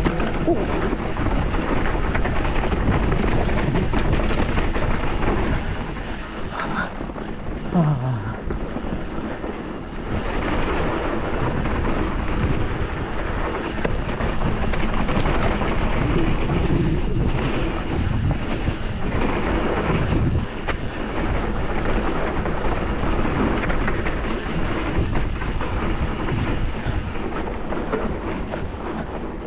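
Wind rushing over the camera microphone mixed with the noise of a hardtail mountain bike ridden along dirt singletrack: tyres rolling on dirt and the bike knocking over bumps.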